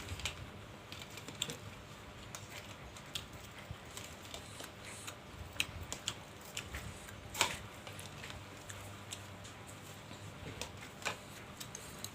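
A person eating close to the microphone: soft, irregular clicks and smacks of chewing and utensils on the bowl, with a louder click about seven seconds in and another near the end.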